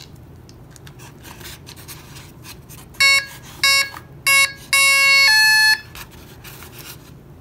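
Electric RC plane's ESC beeping through the brushless motor as the battery is connected and the plane is armed. It gives three short beeps of the same pitch, then a longer tone that steps up to a higher one.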